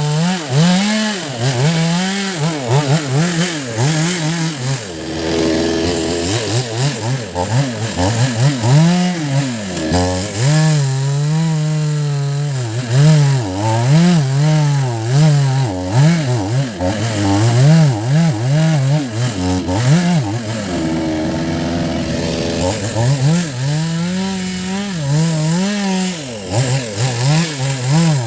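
Chainsaw cutting into the roots of a rain tree (trembesi) stump, the engine's pitch repeatedly dropping and climbing again as the chain bites into the wood and frees up.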